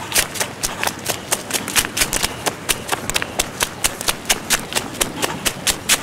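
Quick, regular footfalls of a person running on a dirt path, close up and several strides a second.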